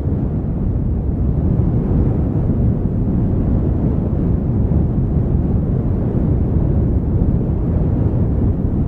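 Steady low rumbling rush of outdoor wind on the microphone beside a burning campfire, with no distinct crackles standing out.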